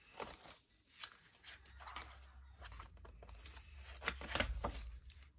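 Paper craft materials being handled, rustling and crinkling in short irregular bursts.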